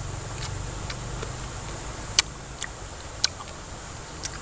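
Person chewing a mouthful of raw cactus pad with the mouth closed, giving a few sharp, wet crunching clicks, with a low hum in the first second and a half.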